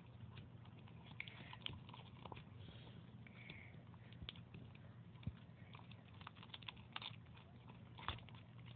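Faint, irregular sticky clicks and squelches of white-glue slime being stirred in a bowl with a mixing utensil as the activator thickens it, over a faint low hum.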